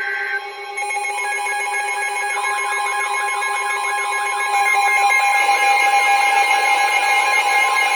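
Emergency Alert System alert tones between two warnings. A short data burst ends at the start, then steady alarm tones sound. About two seconds in, a warbling tone that sweeps up and down joins them, and the whole gets louder about halfway through.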